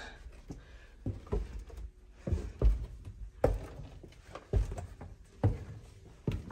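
Slow footsteps, about one step a second, each a sharp thud.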